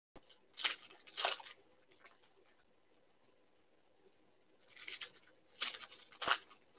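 Foil trading-card pack wrappers crinkling and tearing as they are handled and opened, in short bursts: two around the first second and three more near the end.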